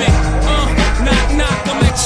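Hip hop track with a heavy bass beat. The bass drops out for about half a second near the end.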